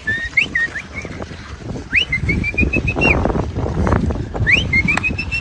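A whistled call repeated three times: each a quick rising swoop followed by a fast run of short, slightly rising notes, over a low rumbling noise.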